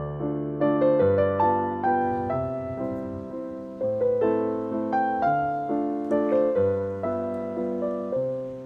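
Intro music: a gentle piano melody over a bass line, with notes struck a few times a second, that cuts off abruptly near the end.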